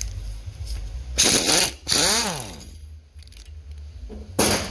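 A power tool working on the cylinder-head bolts of a Subaru 360's two-stroke engine in short bursts: one burst a little after a second in, then a whine that rises and falls in pitch, and a shorter burst near the end.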